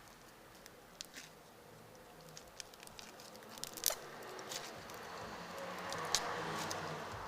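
Crunchy slime being pressed and squished by hand, giving scattered small pops and crunchy clicks, the sharpest about four seconds in. Behind it, traffic on a nearby road rises from about halfway through and eases off near the end.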